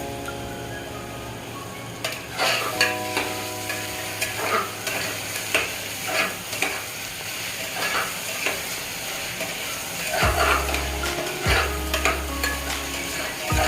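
Food frying and sizzling in a pot while a metal ladle stirs it, with repeated scraping and clinking strokes against the pot from about two seconds in. Soft background music with held notes plays underneath.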